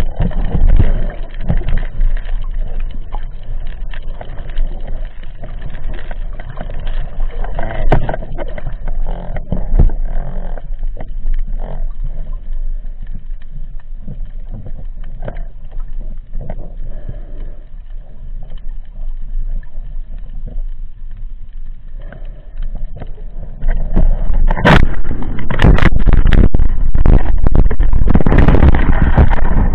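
Muffled underwater noise heard through an action camera's waterproof housing as a diver swims, a low rumble of moving water with scattered knocks. About three-quarters of the way through it turns much louder and rougher.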